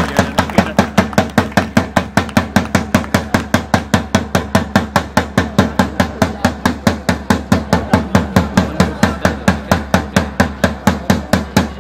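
A drum beaten in a fast, steady rhythm, about five strokes a second, with a low ring carrying under the strokes.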